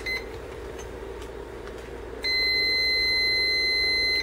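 Digital multimeter's continuity buzzer giving one steady high beep for about two seconds, starting about two seconds in, as the test leads are shorted together to show a closed circuit. A short beep from the meter near the start as its rotary dial is switched.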